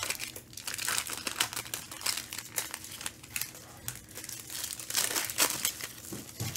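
Foil wrappers of Panini Select basketball card packs crinkling and tearing as they are ripped open by hand: a run of irregular crackles.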